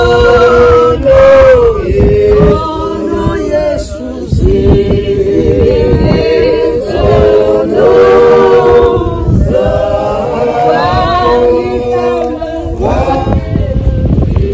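A group of voices singing a traditional Xhosa song together, unaccompanied, in long held phrases with short breaks between them.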